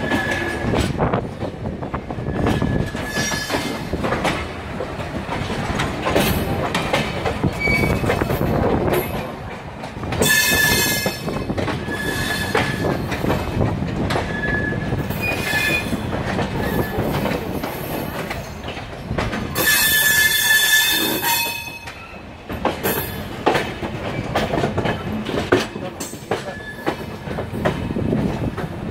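Passenger coaches of a departing express train rolling at low speed through station pointwork: wheels rumbling and clattering over rail joints and crossings, with high-pitched wheel squeals that are loudest about ten seconds and twenty seconds in.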